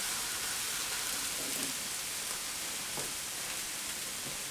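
Mushroom and onion stir fry sizzling steadily in oil in a hot pan, with a few faint knocks.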